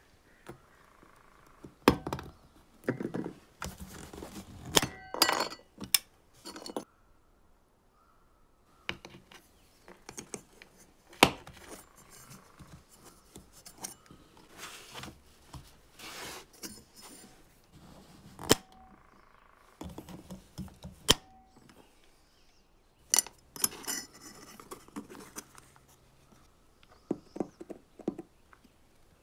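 Irregular clinks, taps and knocks of small metal parts and tools being handled on a metal workbench while a lamp's steel handle bracket and aluminium base are reassembled. The sharp taps come singly and in short clusters, with a short quiet pause about seven seconds in.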